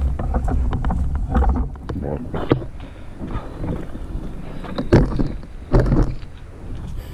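Wind buffeting the microphone in an uneven low rumble, with irregular knocks and bumps from the body-worn camera being carried while walking; two louder thumps about five and six seconds in.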